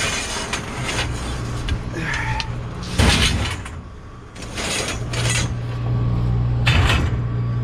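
Metal rods and conduit clanking and scraping against each other as they are pulled from a pile of scrap metal in a dumpster. Loud clatters come at the start and about three, five and seven seconds in, over a steady low hum.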